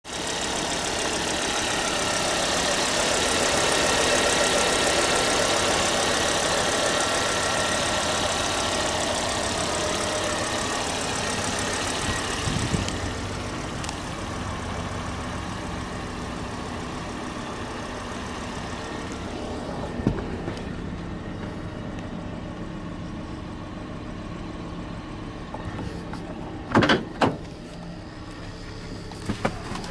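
2008 Volvo 40 Series inline five-cylinder petrol engine idling steadily. It is loud for the first dozen seconds or so, then quieter and more even. A few sharp knocks come in the second half, a close pair of them near the end.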